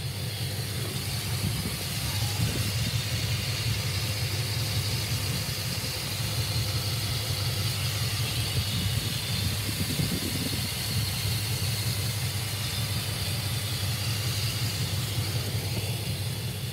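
Pickup truck engine idling steadily, a constant low hum.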